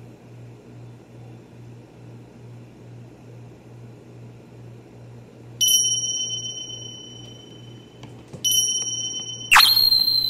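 A small metal object struck three times, each strike ringing high and dying away over a second or two; the third, near the end, is the loudest and comes with a sharp knock. A low pulsing hum runs underneath.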